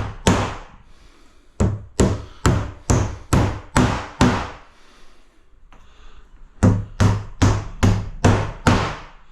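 Hammer blows in quick runs of six or seven, about two or three a second, each with a short low ring, separated by brief pauses.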